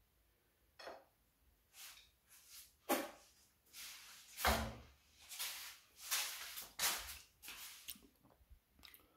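Kitchen handling noises: a run of short rustles and knocks, with one heavier thud about halfway through.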